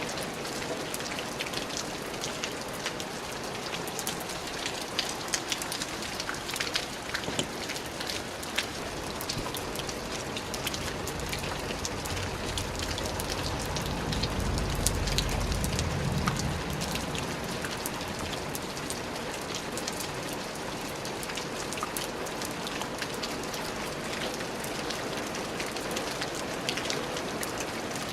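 Steady rain falling on a surface, with many individual drops ticking sharply. A low rumble swells and fades about halfway through.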